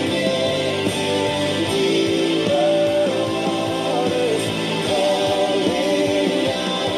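Worship song playing: singing over instrumental accompaniment.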